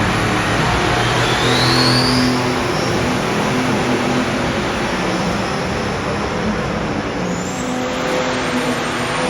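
Pulling tractor engines running hard and loud in a steady roar, with a brief rising whistle about two seconds in.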